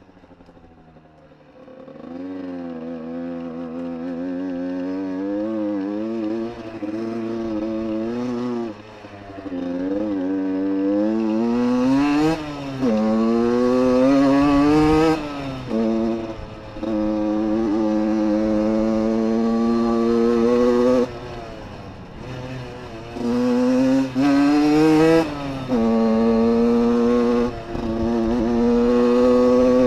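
Small Yamaha dirt bike engine riding under load, starting about two seconds in; its pitch climbs as the throttle is opened and falls back again and again, at throttle lifts and gear changes.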